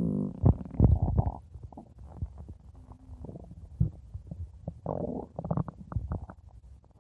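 Stomach growling and gurgling. A pitched growl fades out right at the start, loud gurgles follow in the first second or so, then irregular softer gurgles, a short low hum about three seconds in, and a cluster of quick pops around five to six seconds.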